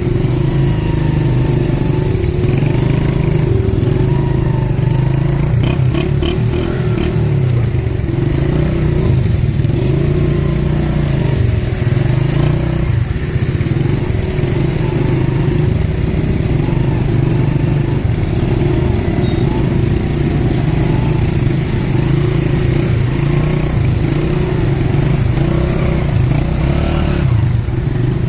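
Motorcycle engine running steadily in stop-and-go traffic, its pitch rising and falling slightly as the throttle changes.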